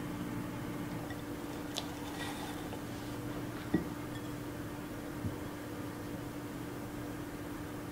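Steady low mechanical hum, like a running appliance or fan, with a few faint clicks over it.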